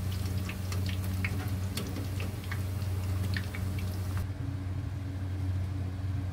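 Hot oil crackling and popping around corn fritters deep-frying in a wok, in scattered sharp pops that stop abruptly about four seconds in. A steady low hum runs underneath.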